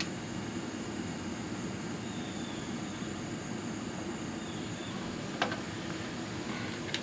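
Steady low background hum with no speech, broken by a short sharp click about five and a half seconds in and another near the end as the leak-down tester's adapter hose and gauge fittings are handled.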